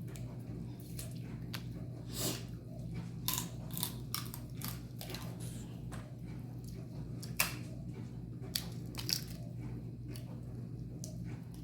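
Seafood-boil eating up close: crab-leg shells cracking and crunching, with wet chewing between the cracks. There are many sharp irregular cracks, the loudest about seven seconds in, over a steady low hum.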